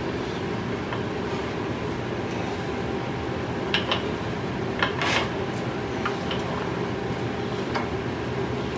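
Bead roller's dies rolling a bead into a sheet-metal panel: a steady mechanical rumble with a few short clicks and squeaks about four and five seconds in.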